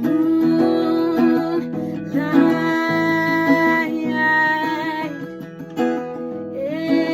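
Acoustic guitar playing, with a voice singing long held notes over it.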